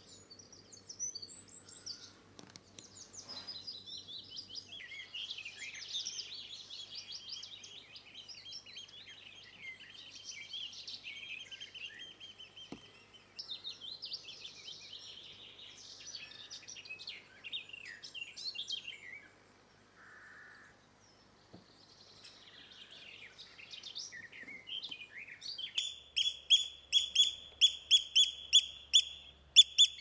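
Several songbirds singing and chirping at once, then near the end a Eurasian oystercatcher's loud piping call, repeated rapidly at about three to four calls a second.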